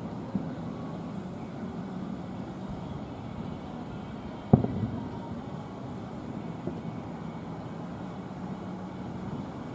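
One loud firework shell bursting about halfway through, its boom ringing on briefly, over a steady low rumble, with a couple of fainter pops.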